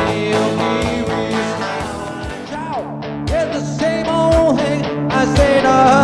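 Live rock-and-roll cover band playing: electric guitar over a steady drum beat and bass, with the guitar bending held notes in the second half.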